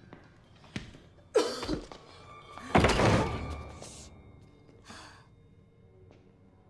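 Film soundtrack of sudden heavy thumps and impact hits with tense music. The loudest hit comes about three seconds in and rings away over about a second; a weaker one follows near five seconds.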